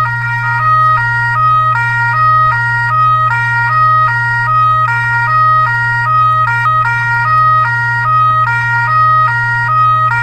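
Fire truck's electronic two-tone siren, switching back and forth between a high and a low pitch at a rapid, even rate, over a constant low hum.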